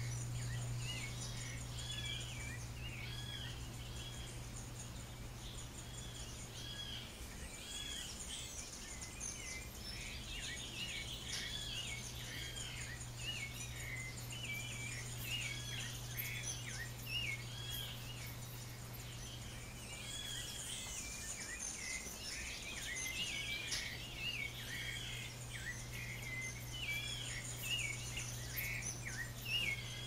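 Songbirds chirping over and over in short, quick arching notes, with insects buzzing high above them and a steady low hum underneath.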